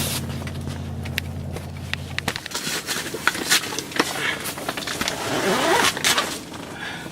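A car engine idling steadily with a low hum, then shut off about two seconds in. Clicks and rustling of handling follow.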